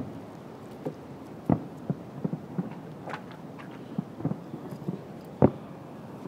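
Distant fireworks bursting: an irregular string of booms and pops. The two loudest come about a second and a half in and near the end.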